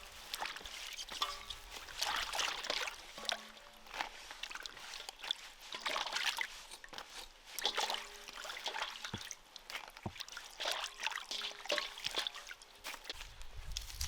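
Water trickling and sloshing in irregular splashes.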